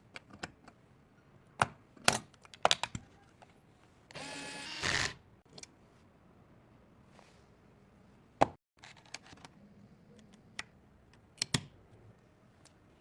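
Scattered clicks and knocks of PC components being handled and fitted together during a build. About four seconds in comes a steady whir lasting about a second.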